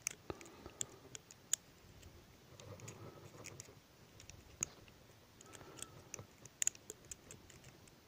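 Faint, irregular small clicks and ticks of a needle tapping the plastic gears and metal casing of an opened microwave turntable motor as oil is dabbed onto the gears.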